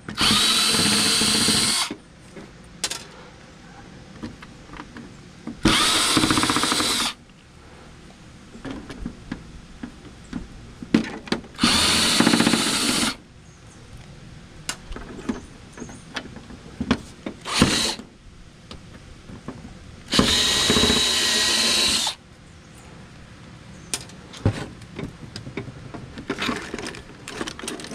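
Cordless drill backing screws out of a flat-screen TV's sheet-metal chassis in four runs of a second or two each, each with a steady whine. Between the runs, small clicks and clatter of screws and parts being handled.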